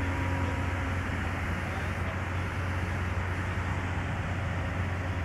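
Steady low hum of running machinery, with an even hiss over it.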